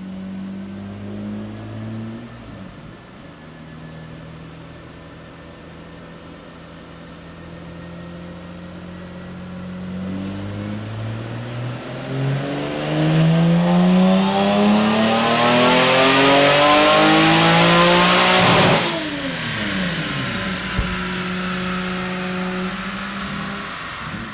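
Turbocharged Toyota 2GR V6 in an MR2 on a chassis dyno, idling, then making a full-throttle pull. The revs climb steadily for about eight seconds and get loudest near the top. The throttle then cuts off sharply, and the revs fall back to a steady idle.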